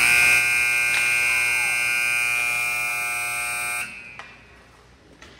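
Arena scoreboard buzzer sounding one long, steady blast that cuts off suddenly about four seconds in.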